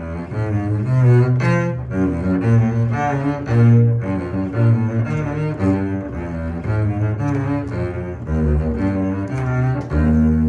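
Double bass played with the bow: a steady run of many short notes in an audition étude passage, closing on a longer held note near the end.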